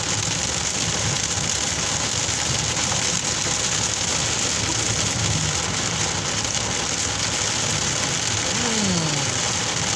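Heavy rain pouring down in a steady, even hiss. Near the end a short falling tone sounds once.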